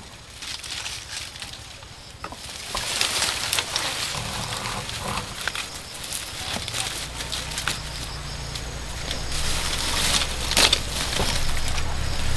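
Dry dead leaves and twigs rustling and crackling with many small snaps as hands dig and pull through dry undergrowth. A steady low hum runs underneath from about four seconds in.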